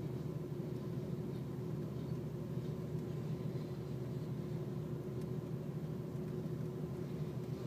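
Freight train cars rolling slowly past, heard from inside a car: a steady low rumble.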